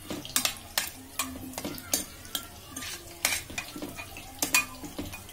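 A spoon stirring thick, wet prawn and liver masala in a stainless steel pressure cooker, with irregular clinks and scrapes of metal against the pot.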